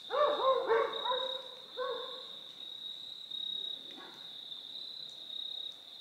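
A dog barking about five times in quick succession during the first two seconds, with a steady high insect trill running underneath.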